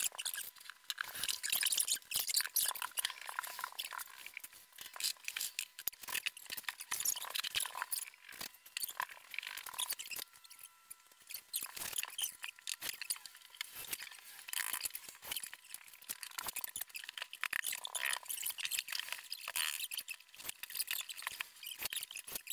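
Metal wire pet-pen panels being handled and fitted together: a busy run of short clicks, scrapes and squeaks.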